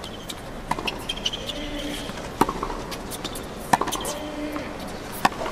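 Tennis rally on a hard court: a tennis ball struck by rackets four times, crisp strokes about a second and a half apart.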